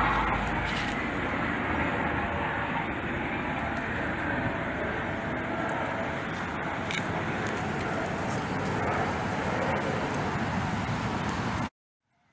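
Steady outdoor rushing noise, with a few faint clicks, that cuts off suddenly near the end.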